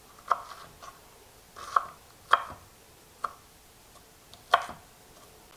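Chef's knife chopping an onion on a wooden cutting board: five separate, sharp knocks of the blade on the board at uneven spacing.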